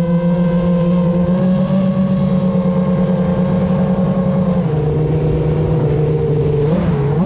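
FPV racing quadcopter's brushless motors running at a steady throttle, a loud even hum with a buzzy whine above it. The pitch drops a little about two-thirds of the way through and climbs again near the end as the throttle changes.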